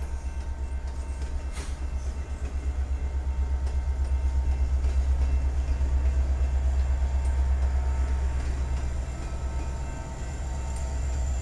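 Freight train rolling past: covered hopper cars with a mid-train Canadian Pacific diesel locomotive going by, a steady low rumble that is loudest about halfway through.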